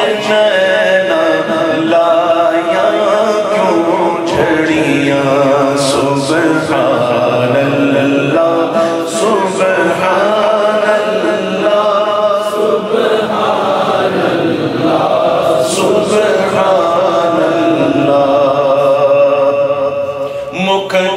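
Naat recital: a man singing an unaccompanied devotional poem into a microphone, in long, drawn-out melodic lines with held notes.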